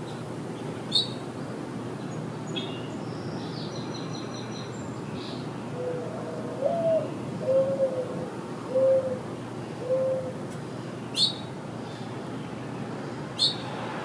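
Mourning dove cooing its five-note song, the second note sliding up and the last three held level, about halfway through. Small songbirds give a few short high chirps and a brief trill, over a steady low background hum.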